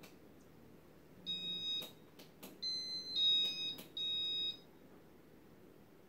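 A run of short electronic beeps at a few different pitches, about four in just over three seconds, with sharp clicks between them, from the Casablanca ceiling fan's control as its settings are worked.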